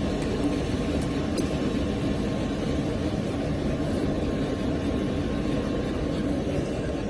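CNC cutting plotter running, a steady low drone.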